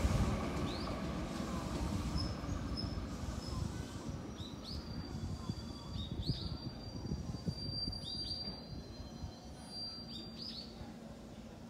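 JR West 221 series electric train's low rumble dying away as it slows, with a small bird chirping several times from about four seconds in.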